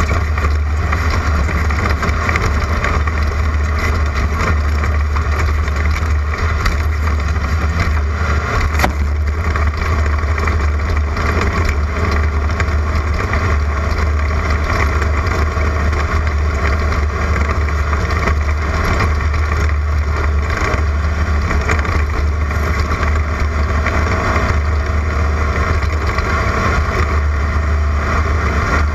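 Class 11 race car's air-cooled Volkswagen flat-four engine running hard and steady under load, with road and wind noise from the car over dirt and a few short knocks.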